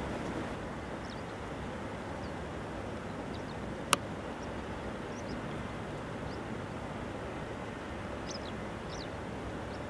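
Distant CH-47 Chinook tandem-rotor helicopter carrying a slung load, a steady low rotor-and-engine noise. A few faint high chirps are scattered through it, and a single sharp click comes about four seconds in.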